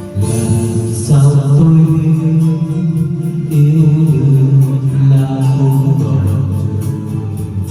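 Music from a Vietnamese love song, with long held melody notes that step from pitch to pitch over a steady bass line.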